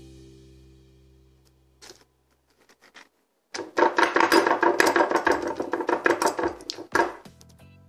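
A hand pressing and rubbing a closed white-bread sandwich on a wooden cutting board: a loud, scratchy rubbing of quick strokes that starts about three and a half seconds in and lasts about three seconds. Before it, background music fades out and there are two soft knocks.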